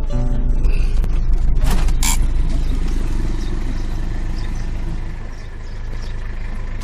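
Steady low rumble of a car on the move, heard from inside, with a couple of sharp clicks about two seconds in.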